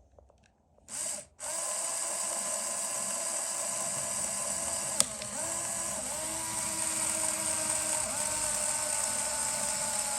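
LEGO Technic electric motor driving a plastic gear train, running with a steady whine that starts after a short quiet moment. The pitch of the whine changes in steps a few times, with a sharp click about five seconds in.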